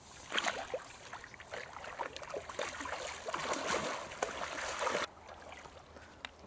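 Pond water splashing and streaming off a large round lift net as it is hauled up out of the pond. The splashing stops suddenly about five seconds in.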